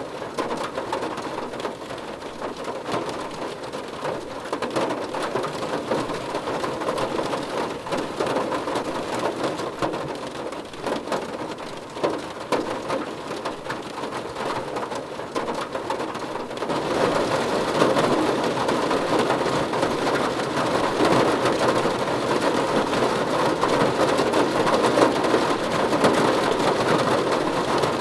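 Steady rain falling, with individual drops heard in the wash. About two-thirds of the way in it turns heavier and louder.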